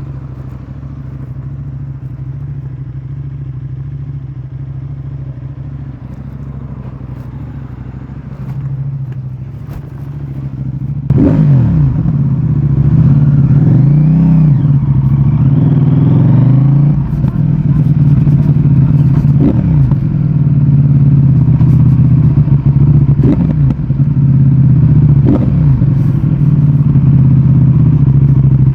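CFMOTO 800NK Advanced motorcycle's parallel-twin engine idling steadily, then about eleven seconds in it gets much louder and is revved up and down several times, its pitch climbing and dropping with each pull of the throttle.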